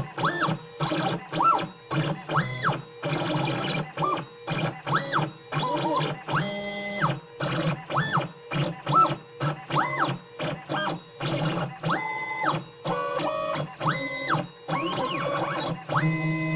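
Stepper motor driving the Z axis of a homemade CNC router, whining through a rapid series of short moves. In each move the pitch rises, holds and falls back as the motor speeds up and stops, over a steady low hum.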